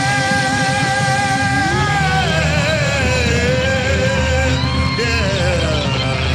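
A singer holds a long sung note that bends down about two seconds in, over a band's accompaniment.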